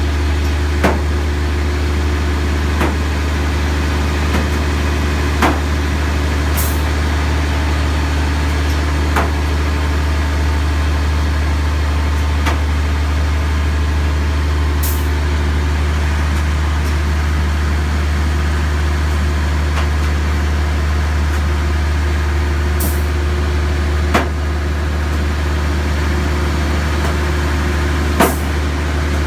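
Crane drive machinery running steadily with a loud low hum, and sharp clicks at irregular intervals every few seconds. The crane is being checked by vibration analysis for a bad bearing.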